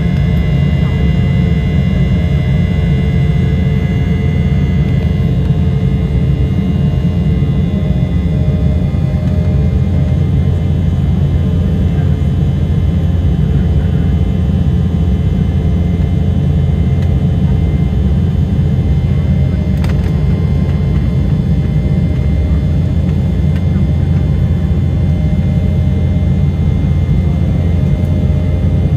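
Jet airliner cabin noise in an Embraer 195, whose two turbofan engines run with a steady, loud low rumble together with the rush of air. A faint higher engine tone fades away in the first several seconds, and there is a single faint click about twenty seconds in.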